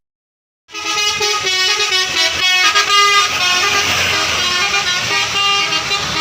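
A bus's multi-tone 'basuri' telolet horn playing a melody of quickly changing notes, starting about a second in after a brief silence.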